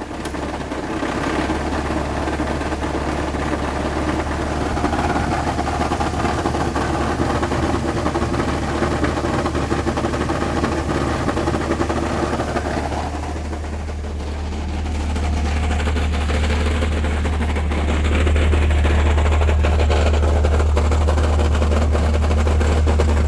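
1998 Chevy S10's 2.2-litre four-cylinder engine running under the load of the AC compressor, knocking; the noise gets worse with load, and the owner leans towards a worn crank bearing. It dips about thirteen seconds in, then grows louder from about eighteen seconds.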